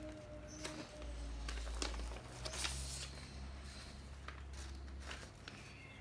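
Rustling and scattered light clicks of things being handled at close range, over a low steady hum.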